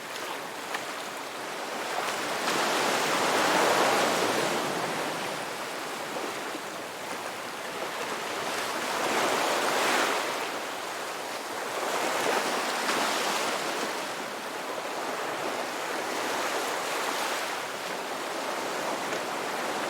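Ocean waves breaking and washing up on a beach, a steady rushing surf that swells and ebbs every few seconds.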